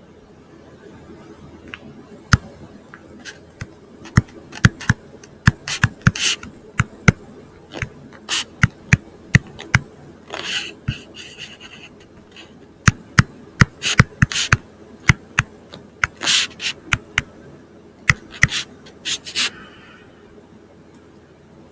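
Stylus tapping and scratching on a tablet screen during handwriting: irregular sharp clicks as the pen tip meets the screen, with short scratchy strokes between them.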